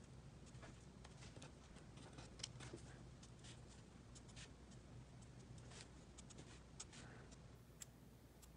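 Faint scratching and tapping of an alcohol-marker nib on cardstock while coloring, a scatter of short strokes over a low steady hum.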